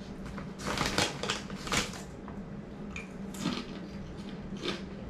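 Plastic potato-chip bag crinkling and rustling in short bursts as a hand rummages in it for chips.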